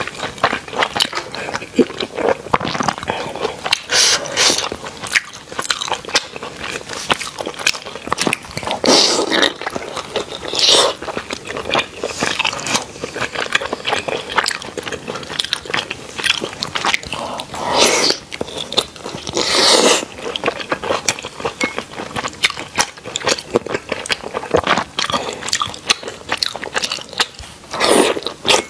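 Close-miked eating of Chinese dumplings dipped in chilli sauce: biting and wet chewing, full of small mouth clicks, with several louder noisy bursts spread through.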